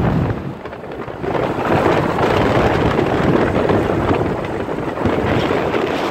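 Wind buffeting the microphone of a camera on a moving motorbike, with the bike's road noise underneath. The rush drops briefly about half a second in, then picks up again.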